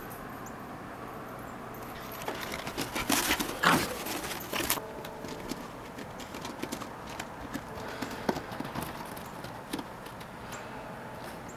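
Crunching and scuffling in deep snow as a small shaggy dog plows through it, with a dense flurry of crackling about three to five seconds in and scattered light clicks after.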